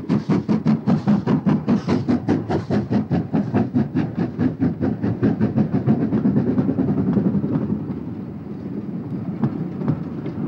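LMS Stanier Class 5 "Black Five" two-cylinder steam locomotive working past with sharp, regular exhaust beats, about four a second. After about six seconds the beats fade into the rumble of the coaches rolling by, with occasional clicks over the rail joints.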